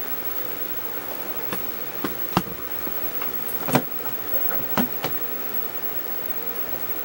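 Spider monkey gnawing at the nuts on a plastic knob from a battery top: a run of sharp clicks of teeth on plastic, about half a dozen spread over a few seconds, the loudest near the middle, over a steady background hiss.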